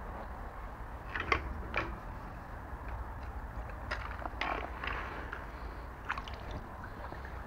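Pool water lapping and splashing against a small floating quadcopter drone, heard close up from its onboard camera. There are a few short, irregular splashes and knocks over a low steady rumble, and no motors are running.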